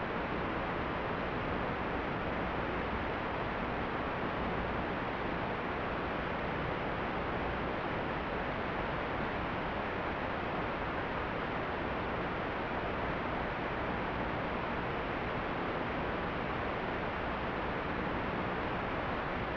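Steady, even hiss of static, with no motor tone or other events in it: the typical audio of an analog FPV video receiver with no microphone signal on the link.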